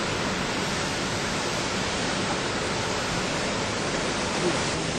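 Steady, even rushing of running water, with no breaks or changes in level.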